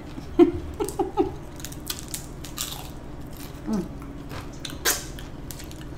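Close-up chewing and crunching of hard-shell tacos: irregular sharp crunches of fried corn shells being bitten and chewed, the loudest about half a second in and again near five seconds in.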